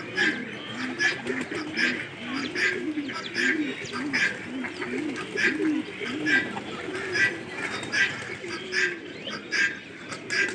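Aviary birds: several pigeons cooing over one another, with a small bird's short high chirp repeating about once a second.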